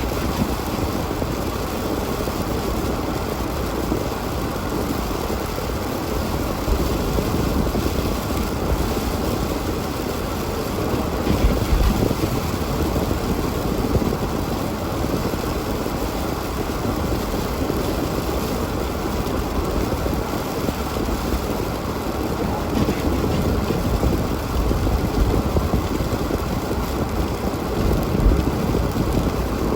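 A car driving, with steady engine and road noise and a few brief low thumps.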